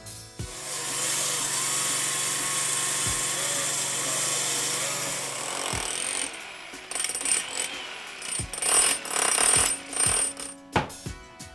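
Power tools cutting into a concrete block foundation wall. A saw runs steadily for about five seconds, then an electric hammer drill bores into the block in several short bursts.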